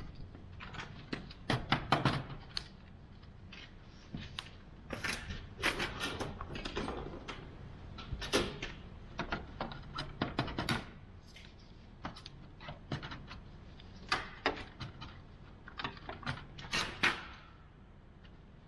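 Plastic grille trim on a pickup's front end being handled and pried at, giving irregular clicks, taps and knocks.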